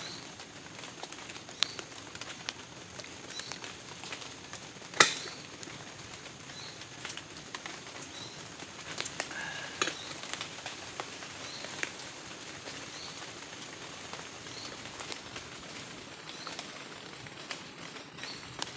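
Steady rain with scattered heavier drops ticking, and a sharp knock about five seconds in. A faint high chirp repeats about once a second.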